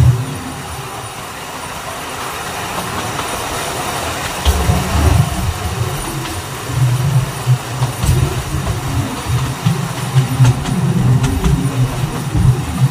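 Alishan Forest Railway narrow-gauge train running, heard from a carriage window: a steady rumble of wheels on the rails with a few sharp clicks. The rumble grows louder about four seconds in.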